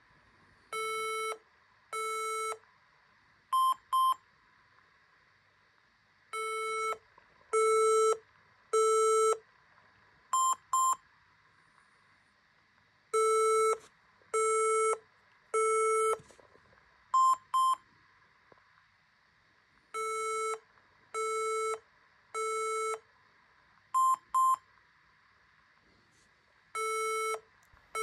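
HP EliteBook laptop's startup error beeps: three longer, lower beeps followed by two short, higher beeps, the five-beep cycle repeating about every seven seconds. The five-beep code is the sign of a RAM (memory) failure, with the laptop failing to boot.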